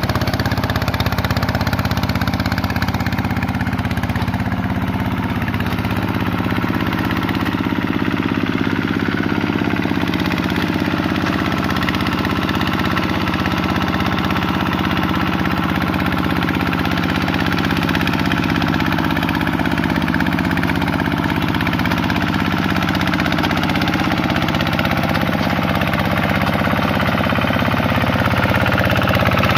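Kubota RV125-2 single-cylinder diesel engine of a two-wheel hand tractor running steadily under load as it pulls its tiller through paddy-field mud.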